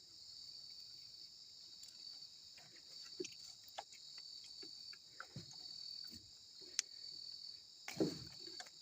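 Crickets chirring, a steady high trill, with a few faint scattered clicks and knocks.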